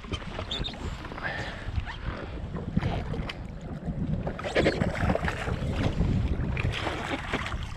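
Wind buffeting the microphone and water lapping against a jet ski's hull, with a few irregular knocks and splashes.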